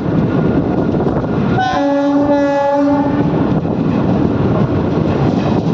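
A train horn sounds once for about a second and a half, over the steady running noise of a moving train.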